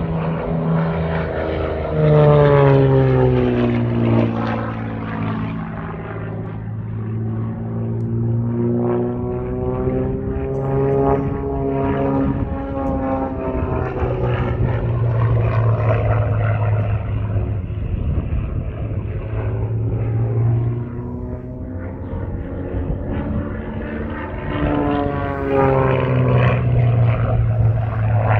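Propeller-driven aircraft in a flying display, its engine note gliding up and down in pitch as it passes. It is loudest about two seconds in and again near the end.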